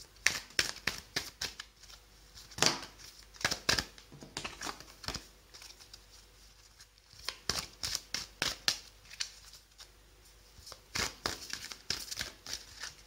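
A deck of oracle cards being shuffled by hand: quick papery card slaps and slides in several spurts, with short pauses between them.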